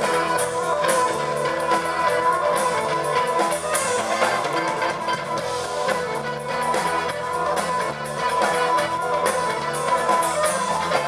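Irish rock band playing live through a PA: electric guitar, fiddle and drum kit together, steady and continuous.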